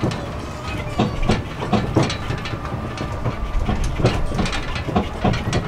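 DOTTO road train running over the ground, with a steady low rumble and repeated knocks and rattles about twice a second.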